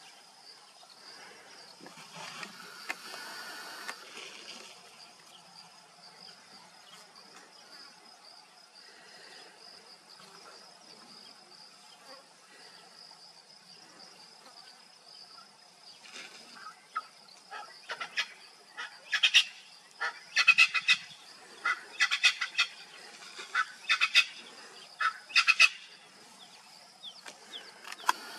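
Steady high-pitched insect drone throughout. From about halfway in, a bird's loud calls come in rapid clicking bursts, in groups every second or two, until near the end.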